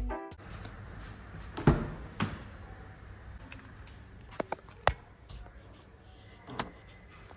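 Background music cutting off right at the start, then a quiet stretch with a few scattered knocks and clicks, the loudest about a second and a half in.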